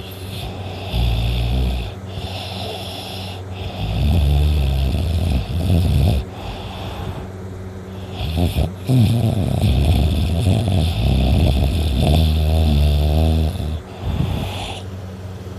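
A teenage boy snoring loudly in heavy sleep: a string of uneven snores, the longest about halfway through with a fluttering rattle in it.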